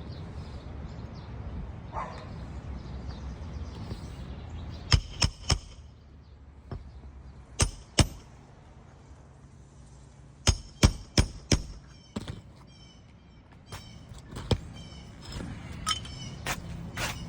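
Sharp knocks in small groups of two to four, over a steady low background noise.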